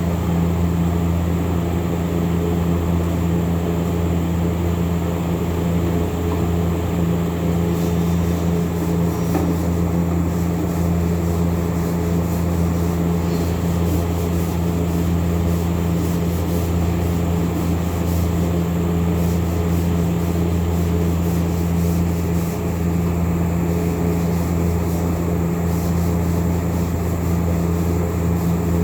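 Electric power sander running steadily, a constant motor hum with sanding noise over it.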